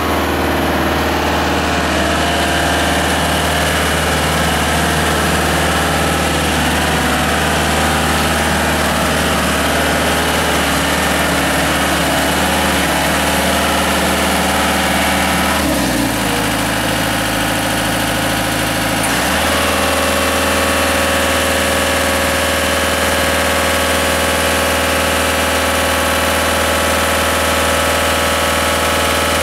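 Genie GS-4390 rough-terrain scissor lift's engine running steadily as the lift drives on gravel. About halfway through its note changes for a few seconds, then it settles back into a steady run with more of a whine in it, while the levelling outriggers are down.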